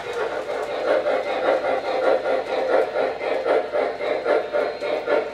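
O-gauge model freight train, hauled by an MTH Rail King PRR M1a, running on three-rail track: a steady rolling rumble with many small clicks from the wheels on the rails.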